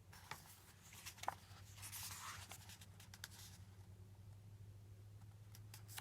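Faint paper rustling with a few small clicks, loudest about two seconds in: the pages of a picture book being handled and turned.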